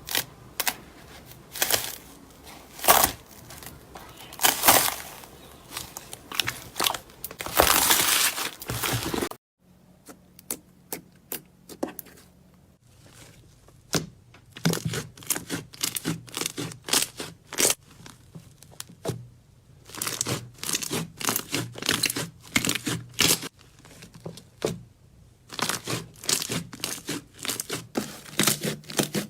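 Slime being squeezed and poked by hand, giving a rapid string of sharp crackling pops and sticky tearing squelches, with a brief break about a third of the way in.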